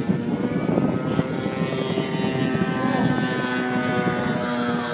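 Radio-controlled model airplane engines and propellers running: a steady drone of several pitches, with one sliding down in pitch in the second half.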